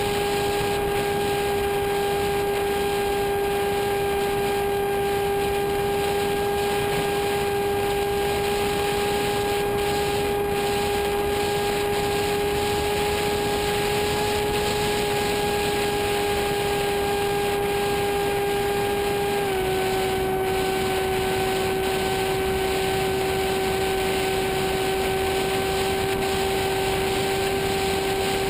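Ritewing D40 flying wing's motor and propeller running at a steady whine in flight, with wind rushing over the airframe; the pitch drops a little about twenty seconds in as the throttle eases.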